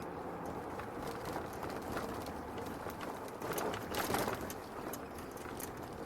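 Steady road and engine noise inside a car driving on a snow- and ice-covered street, with scattered small clicks and a brief louder rush of noise about four seconds in.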